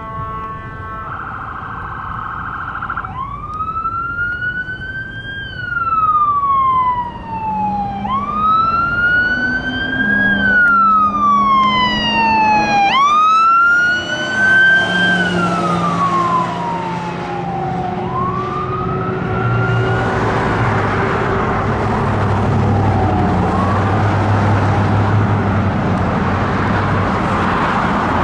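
Fire truck siren sounding a wail: after a brief steady horn-like tone, it goes through four slow cycles, each rising quickly and falling over about four seconds. From about twenty seconds in the siren fades and the truck's engine and traffic noise take over as it drives away.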